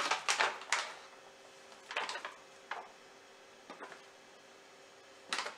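Crinkling of a plastic zip-lock pouch being handled as cookie dough balls are put into it: a cluster of short rustles in the first second, then single brief rustles spaced through the rest.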